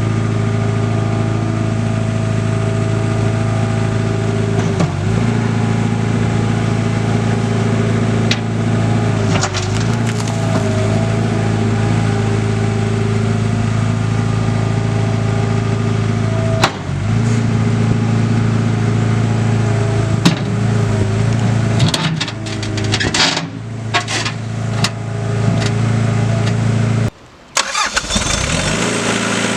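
Caterpillar 247B skid steer's diesel engine running steadily. Its pitch dips briefly a few times, and it turns uneven with clicks in the last third. Near the end the sound drops out for about a second, then the engine runs again.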